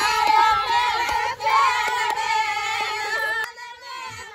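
Group of women singing a Bundeli wedding folk song together, with sharp hand claps keeping the beat. About three and a half seconds in, the sound cuts to quieter, thinner singing.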